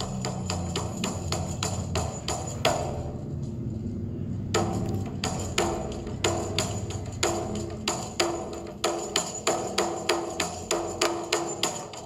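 Background music: a steady run of sharp, wood-block-like percussive taps over a low bass, with short pitched notes joining in about four and a half seconds in.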